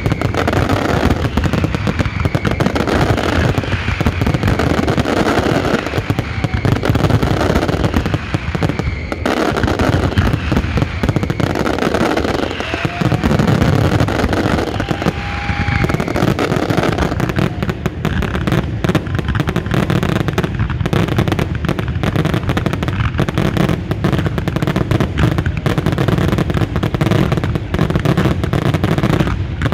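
Fireworks finale barrage: aerial shells bursting in a dense, continuous stream of bangs and crackle, with a few short whistling tones.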